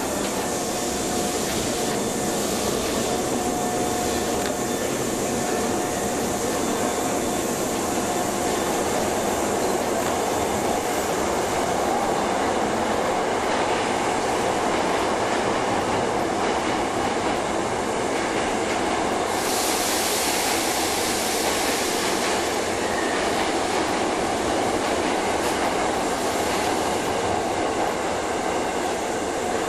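Keisei electric train in an underground station, a steady rumble and hum echoing off the platform walls, with a burst of air hiss about two-thirds of the way through.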